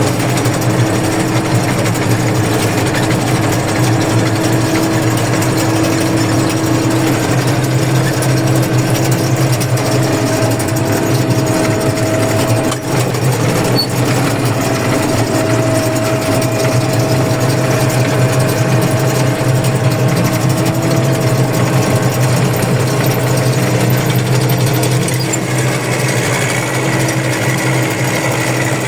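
Peat-harvesting machinery engine running steadily at constant speed, a continuous drone with a faint higher whine that comes and goes in the middle.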